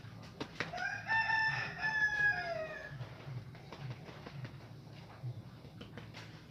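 A long pitched animal call, held for about two seconds and falling in pitch at the end.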